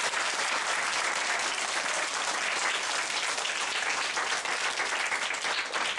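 An audience of schoolchildren applauding, a dense and steady clapping.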